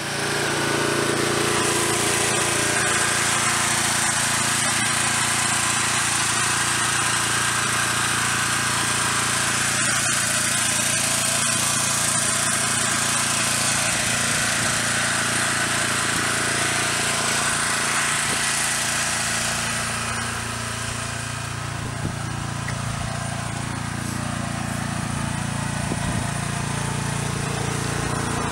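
Gas-engine pressure washer running steadily, its small engine humming under the hiss of the water spray. The hiss eases a little about twenty seconds in.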